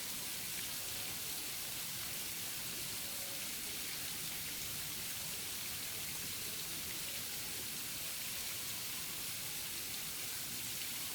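Steady rain: an even hiss with no rise or fall.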